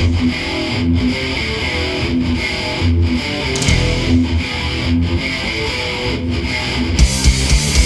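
Heavy metal music: a distorted electric guitar riff playing in a steady rhythm, with sharp drum hits coming in about seven seconds in.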